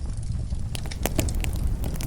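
Wood fire burning in a fireplace: a low steady rumble with sharp crackles and pops from the logs, several louder pops in the second second.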